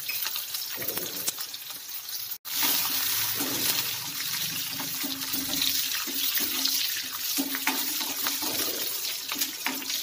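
Onion, curry leaves and garlic sizzling as they fry in hot sesame oil in a kadai: a steady hiss full of small crackles. It breaks off for an instant about two and a half seconds in.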